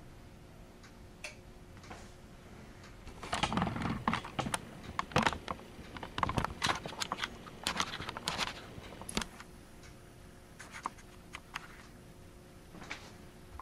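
Irregular mechanical clicking and rattling from a Gray Mfg model 150G payphone's mechanism, a dense cluster of clicks for several seconds, then a few single clicks.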